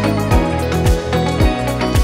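Background music with a steady beat: a deep thump about twice a second under sustained chords.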